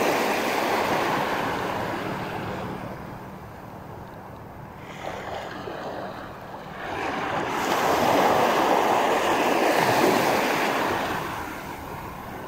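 Small waves washing up on a beach in two slow swells, with some wind on the microphone.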